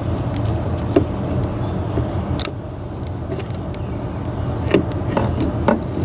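Scattered clicks and light knocks from a hand working an ignition coil into place among engine parts, over a steady low hum.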